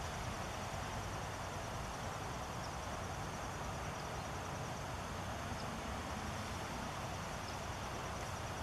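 Steady outdoor background noise: a low rumble under an even hiss, with a faint high steady tone and a few faint, short high ticks. No hawk calls are heard.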